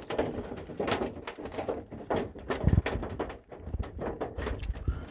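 Small hailstones striking a van's roof and windshield, heard from inside the cabin: a dense, irregular run of sharp clicks and taps, with a louder dull thump about two and a half seconds in.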